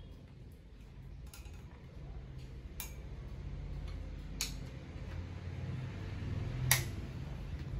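A plug being pushed into a wall socket and the socket's switch flicked: a few sharp clicks, the loudest near the end, over a low rumble of handling noise.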